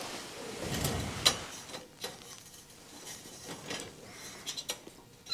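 Soft rustling and handling of small camping gear, with a few short, sharp clicks: one about a second in and a cluster near the end.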